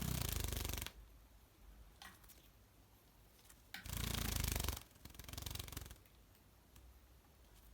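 Java sparrow splashing in its water bath dish, fluttering its wings in the water in three bursts: a second-long one at the start, another about four seconds in and a shorter one right after it, with light ticks between.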